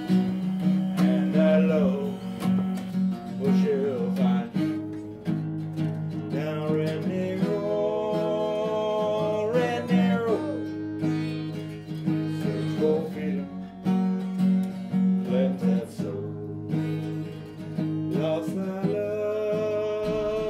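Background music: a country-style song led by acoustic guitar, here in a mostly instrumental stretch with a gliding melodic lead over steady chords.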